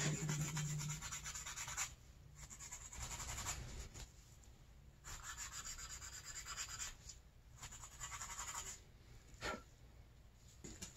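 Scratchy rubbing in four stretches of one to two seconds each: nitrile-gloved hands working over a snowmobile reed valve block. A short knock sounds about nine and a half seconds in.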